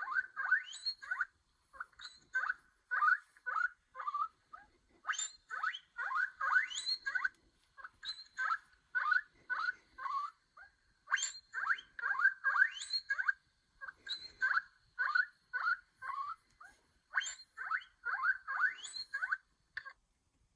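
Guinea pig wheeking: bouts of short, shrill squeals repeated several times a second, with brief pauses between bouts, stopping shortly before the end.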